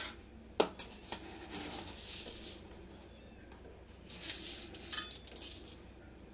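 Dry split yellow lentils (dal) being scooped with a steel tumbler and poured into a steel pot: the grains rattle against the metal in two short pours, with a few sharp clinks of steel.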